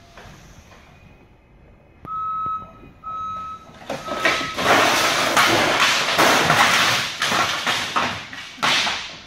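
A forklift's warning alarm beeps three times at one steady pitch, then a tall stack of empty wooden pallets topples from high racking and crashes to the floor, clattering and banging for several seconds.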